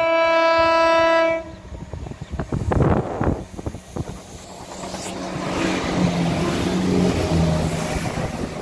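A ScotRail Class 170 Turbostar diesel multiple unit sounds one steady horn note lasting about a second and a half, then comes on toward the listener. Its underfloor diesel engines grow louder toward the end, with clicks from the wheels over the rails.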